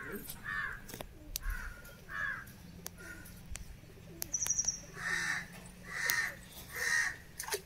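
Crows cawing, a few softer caws followed by three louder harsh caws about a second apart near the end, with a brief high chirp from a small bird in the middle.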